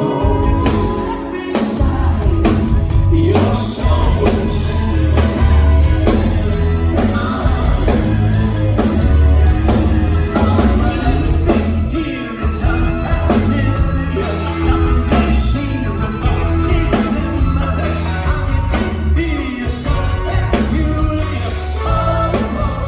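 Rock band playing live with a lead singer: singing over drums, bass and guitar.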